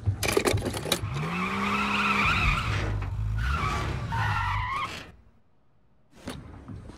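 Car skidding with tires squealing, a pitched whine rising and falling under it, after a few sharp clicks; it cuts off about five seconds in.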